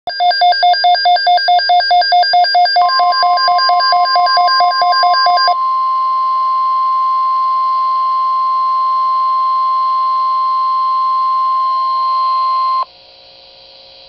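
Midland weather alert radio going off for a NOAA Weather Radio alert. A shrill pulsing beep, about four a second, runs for roughly five and a half seconds. Overlapping it from about three seconds in, the steady 1050 Hz weather-radio warning tone holds for about ten seconds, then cuts off suddenly, leaving a faint hum before the broadcast voice.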